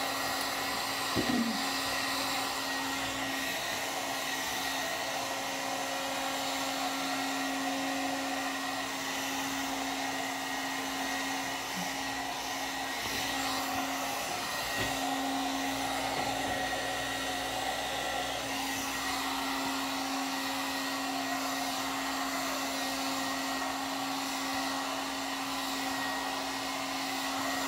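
One-step hot-air dryer brush running steadily as it dries hair: a constant blowing whir with a steady motor hum.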